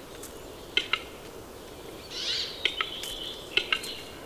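Western capercaillie cock's display song: a few sharp, widely spaced clicks, with a short hissing rasp about halfway through.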